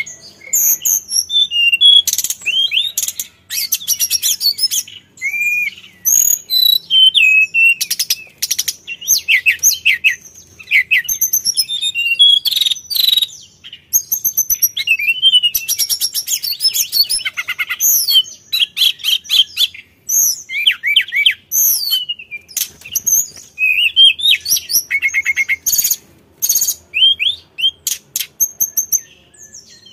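Hill blue flycatcher (sulingan / tledekan gunung) singing a long, varied song of clear whistled notes, glides and rapid trills, phrase after phrase with short pauses.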